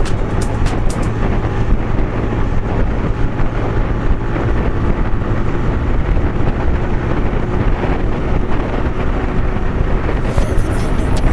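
Motorcycle engine running steadily at highway cruising speed, with wind rushing over the microphone.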